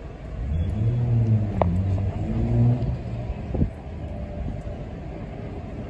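Road traffic passing on the street below: one vehicle's engine hum swells about half a second in and fades after about three seconds, over a steady low rumble.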